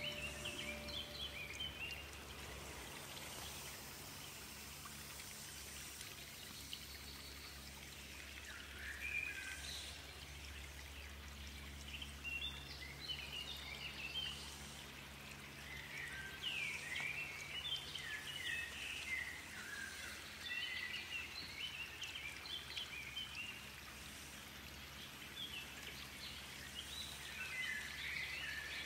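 Birds singing in clusters of quick, chirpy phrases every few seconds over a steady low background noise.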